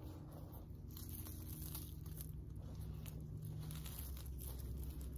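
Hands pulling apart and tossing a large pile of grey dust and lint on carpet: soft, uneven rustling and crinkling. A low steady hum runs underneath.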